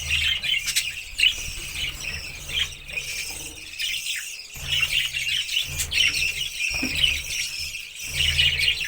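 Small pet parrots kept as "love birds" chattering in rapid, shrill chirps and squeals, over a low hum that cuts in and out.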